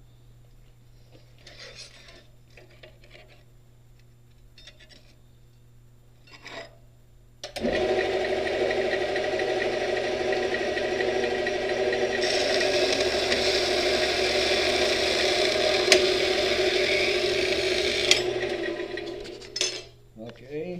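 A few light scrapes and knocks on metal, then an angle grinder starts about seven seconds in and grinds down a steel weld for about twelve seconds before winding down.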